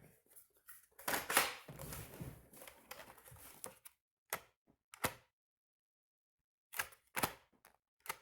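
Hands working on plastic and metal tool parts: a couple of seconds of scraping and knocking, then a few separate sharp clicks and taps.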